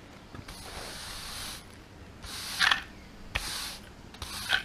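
Push broom sweeping wood splinters across a concrete slab, in several separate scraping strokes about a second apart.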